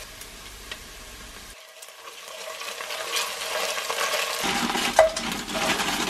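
Diced onions sizzling in oil in an enamelled cast-iron pot, stirred and scraped with a wooden spoon. The sizzle grows louder from about two seconds in, and there is a sharp knock about five seconds in.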